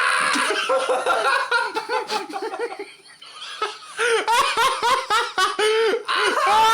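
Hearty laughter in quick repeated bursts. It dies down briefly about three seconds in, then breaks out again.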